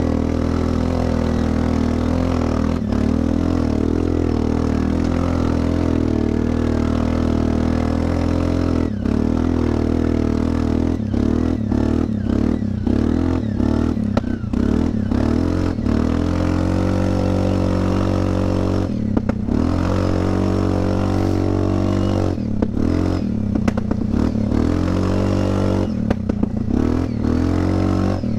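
Linhai 400S Dragonfly ATV's single-cylinder engine running under way through a cheap fake Akrapovic aftermarket exhaust, loud and steady. From about a third of the way in, the revs drop and pick up again several times as the throttle is eased off and opened.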